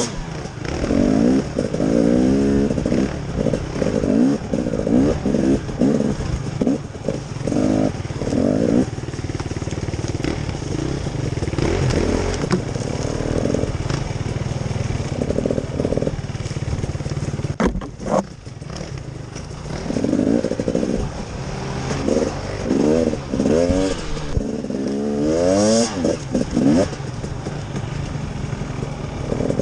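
Small off-road vehicle engine running and revving up and down again and again, easing off briefly about two-thirds of the way through.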